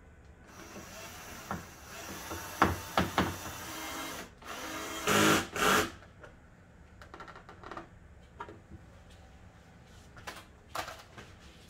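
Cordless drill driving screws: it runs for a few seconds, then a louder short burst, followed by light clicks and taps.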